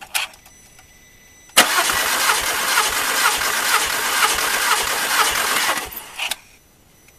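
Volkswagen Golf Mk4 2.0 L four-cylinder engine turned over by the starter motor for about four seconds without firing, its fuel pump disabled for a compression test. It cranks with an even beat of about two compression strokes a second, starting and stopping abruptly.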